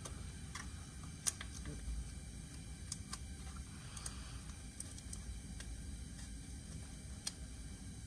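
Scattered light clicks and taps from hands handling a motorcycle license plate and its LED plate light at the rear fender, the sharpest about a second in, over a low steady rumble.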